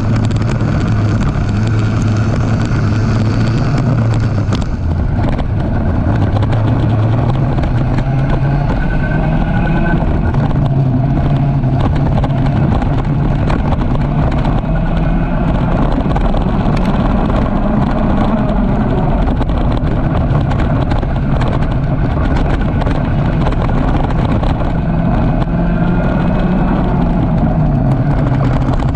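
Micro Rok kart's 60cc two-stroke engine running at racing speed, its pitch rising and falling with throttle over several seconds at a time, heard from an onboard camera, with other karts' engines close by.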